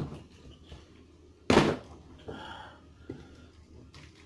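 A plastic wrestling action figure slammed down onto a toy wrestling ring, one loud thud about a second and a half in, with a few lighter knocks of plastic being handled.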